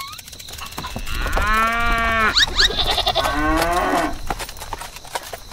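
Two drawn-out animal calls, livestock-like, each about a second long, the second one wavering, with a few short high chirps between them.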